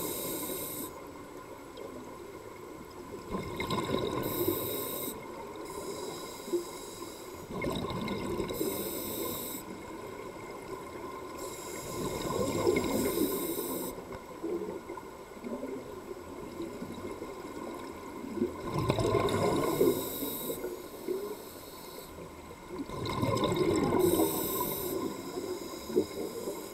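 Underwater scuba breathing through an open-circuit regulator: about six bursts of exhaled bubbles, gurgling and crackling, every four to five seconds with one longer pause.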